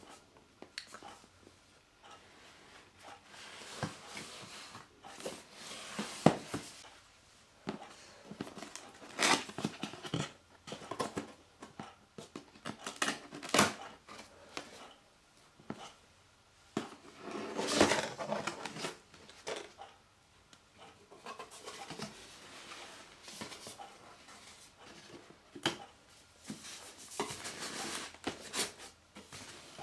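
Cardboard box being opened by hand: irregular scraping, rustling and tapping as the flaps and cardboard handle are pulled free and folded back, with a sharp knock about six seconds in.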